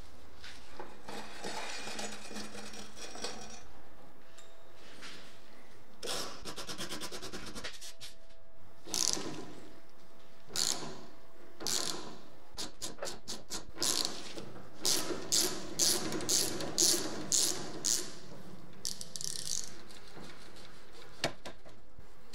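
Ratchet wrench with a hex bit and socket working rusty bolts off a BMX frame: bursts of fast ratchet clicking, then a run of sharp clicking strokes about twice a second. Near the start, a rattle of loose steel bearing balls.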